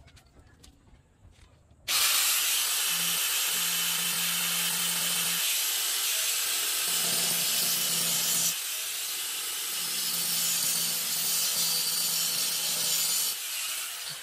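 INGCO angle grinder switched on about two seconds in and cutting through a 3/4-inch metal pipe with its cut-off disc, a loud steady hiss over the motor's hum. Near the end the disc comes off the pipe and the grinder winds down.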